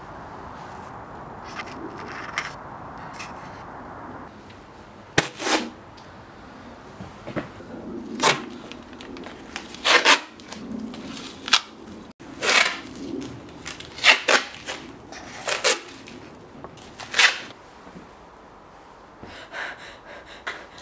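Wide adhesive tape being pulled off the roll in a series of short, loud rips, some coming in quick pairs. The ripping starts faintly and is loudest from about five seconds in.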